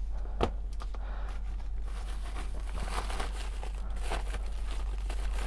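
Packaging being handled: crinkling and rustling with many small scattered clicks, as the wrapping around a pair of headphones is opened.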